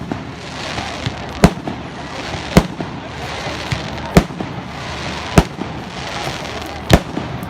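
Fireworks display: aerial shells bursting in sharp loud bangs, five of them about every second and a half, over a steady crackle and hiss.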